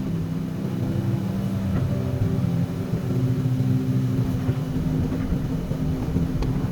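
Komatsu PC200 hydraulic excavator's diesel engine running steadily.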